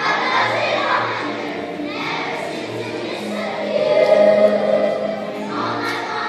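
A choir singing a song with instrumental accompaniment, the voices swelling loudest a little past the middle.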